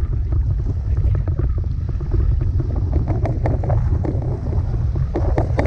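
Wind buffeting the microphone: a steady low rumble, with scattered short clicks.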